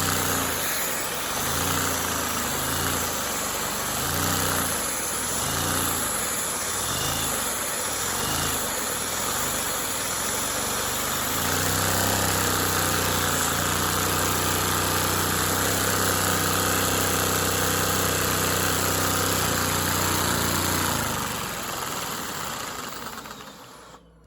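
LEGO Technic V-twin engine with a small flywheel running, with a steady hiss above it. Its pitch wavers up and down about once a second for the first ten seconds or so, then holds steady, before it fades out and stops near the end.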